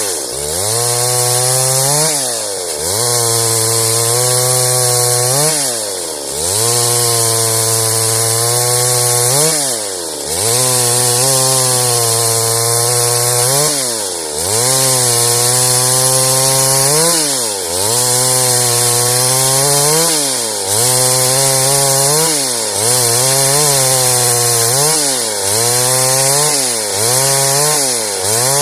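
Stihl MS 382 two-stroke chainsaw ripping through wood at high revs. Every few seconds the engine speed drops sharply and climbs straight back as the throttle is eased and reopened between passes.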